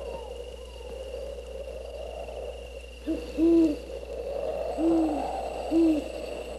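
An owl hooting: four low, short hoots in the second half, the first faint and the next three loud, over a steady background rush.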